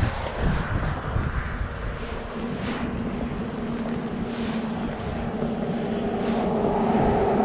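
A motor vehicle's engine running with a steady hum over low rumble, growing louder toward the end before the upper part cuts off suddenly.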